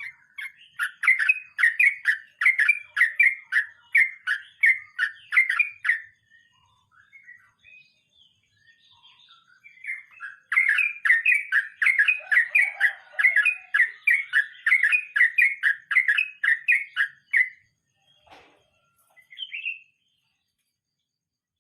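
Yellow-vented bulbul singing two long rolling runs of quick, repeated notes, about two to three a second, with a pause between them. A few single notes and a short knock come near the end.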